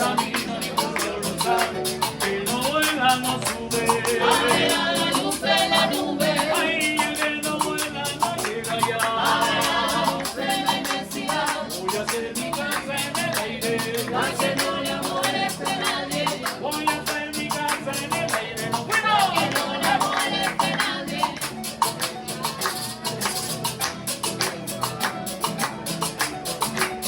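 Live vallenato music on acoustic guitar and harp with hand percussion keeping a dense, steady rhythm.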